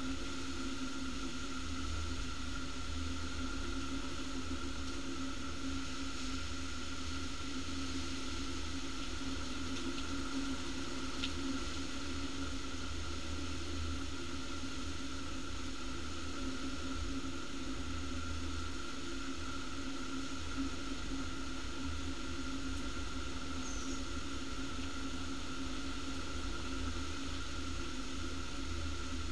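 Heavy rain pouring down in a violent storm: a steady, even hiss with a low rumble underneath.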